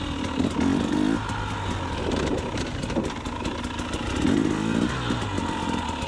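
2020 KTM 300 XC TPI's fuel-injected two-stroke single-cylinder engine running under way, its pitch rising and falling with the throttle. It is loudest about half a second in and again about four seconds in.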